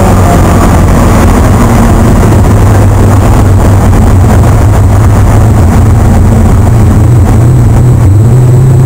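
Holden Torana race car's engine heard from inside the cabin, loud and running at fairly steady revs, its pitch rising slightly near the end.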